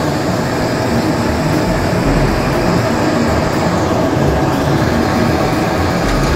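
Indian Railways diesel locomotive running as it moves slowly past at close range: a loud, steady engine drone over the noise of the train on the rails.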